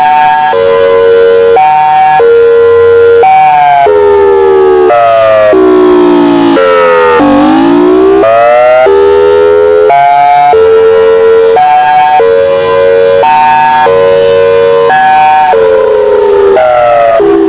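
Air-raid/tornado siren sounding loudly in a high-low pattern, stepping back and forth between two pitches about once a second. About seven seconds in, its pitch slides down and climbs back up before the alternation resumes.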